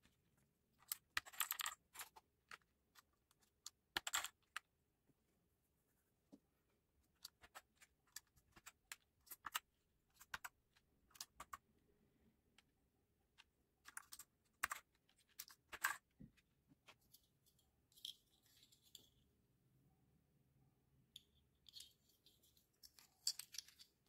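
Plastic keycaps on a mechanical keyboard being handled: irregular sharp clicks and clatters, some in quick little clusters. There are brief scraping rustles twice near the end.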